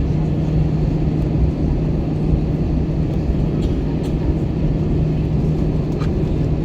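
Airbus A321 cabin noise on the ground before takeoff: the engines running at low power give a steady rumble under a constant low hum.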